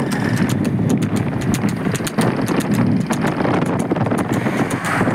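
Water buffalo bull's hooves clip-clopping quickly on asphalt as it runs pulling a two-wheeled cart, over a steady rumble of road and wind noise.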